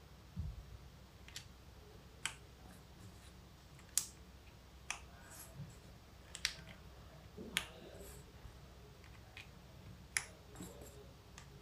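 Plastic keycaps being pressed onto the stems of mechanical keyboard switches: a dozen or so single sharp clicks at irregular intervals, about one a second, with a low thump near the start.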